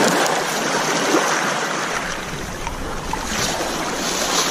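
Steady rushing noise of wind and sea water around a small fishing boat.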